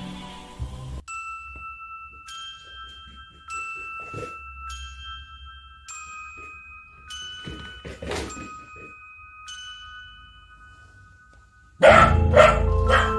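A Samoyed barking twice, about four and eight seconds in, over sparse chiming background music of held high notes. Near the end, louder music with quick struck notes begins.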